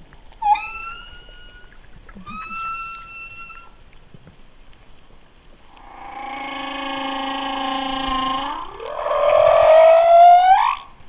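Humpback whale calls heard underwater: two shorter calls in the first few seconds, the first sweeping up in pitch, then a long held call and, near the end, the loudest call, rising in pitch.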